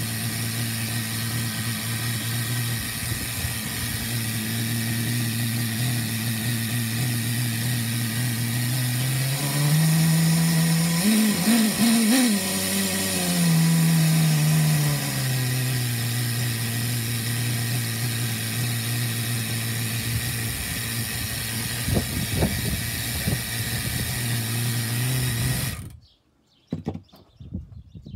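Traxxas TRX 15 two-stroke nitro model engine running on a bench test stand, holding a steady idle. About ten seconds in its revs rise, waver unevenly for a few seconds, then settle back to the steady idle. Near the end the engine falls silent abruptly, followed by a few faint knocks.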